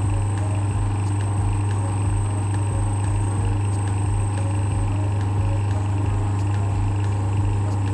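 Jammed desert-cooler fan motor humming steadily under mains power without turning its shaft; a stalled motor with tight, seized bushings, which the repairer suspects are worn.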